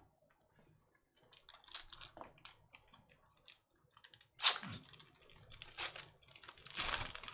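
Trading cards being handled and flipped through: a run of light clicks and rustles, with two louder rustles about four and a half and seven seconds in.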